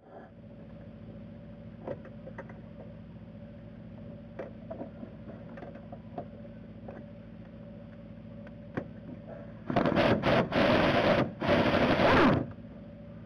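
Power ratchet spinning off the brake master cylinder's mounting nuts: a loud run of about three seconds with a couple of short breaks, near the end. Before it, the socket makes a few small clicks on the nuts.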